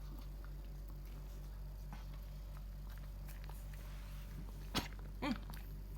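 Steady low hum, then a sharp click about five seconds in followed by a short, high whine from a small dog.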